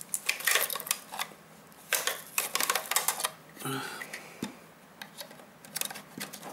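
Hard plastic clicks and taps from a handheld multimeter's case being handled and its battery compartment worked at by hand, in a few quick clusters.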